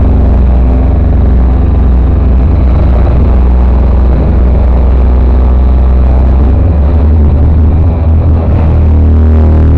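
Very loud live music heard from within the crowd, dominated by a heavy, overloaded bass drone that distorts the recording. The lowest bass drops away for a second or two near the end, then comes back in.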